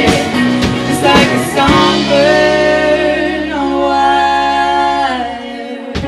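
Live band of drums, guitars and keyboard with a woman singing: a few drum hits, then a long held chord that stops about five seconds in.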